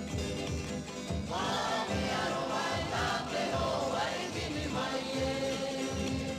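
Music with choral singing.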